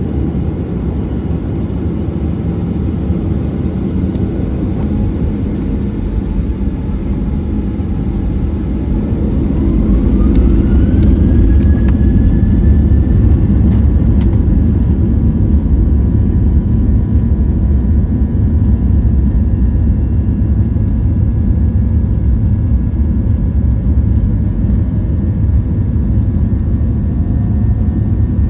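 Boeing 737-800's CFM56-7B turbofan engines spooling up for takeoff: a steady low rumble, then about nine seconds in a whine rises in pitch over a couple of seconds and settles into a steady high tone as the rumble grows louder, the engines reaching takeoff thrust.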